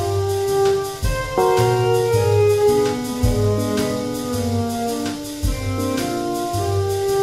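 AI-generated contemporary jazz instrumental: several held melody notes moving over a beat, with a deep low thump about every two seconds.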